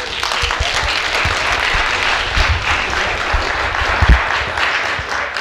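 Audience applauding, with a low thump about four seconds in.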